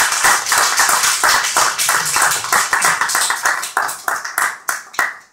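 Audience applauding, the claps thinning out to a few scattered ones and stopping near the end.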